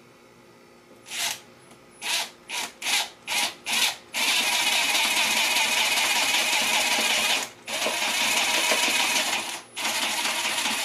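Cordless drill driving screws into cherry wood. It starts with about six short trigger pulses to start the screw, then the motor runs steadily for several seconds, broken twice briefly.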